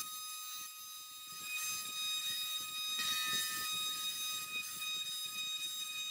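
CNC router spindle running at about 19,000 RPM with a steady high-pitched whine, its 1/8 inch up-spiral bit cutting dry into 6061 aluminum plate. Under the whine is an uneven, scratchy cutting noise that swells and eases as the bit moves.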